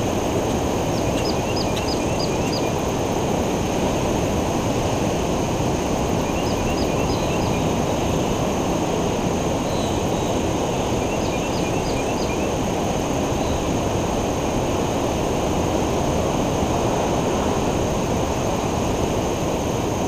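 Ocean surf breaking and washing on a beach, a steady, unbroken rush of noise. Three short runs of quick high chirps cut through it.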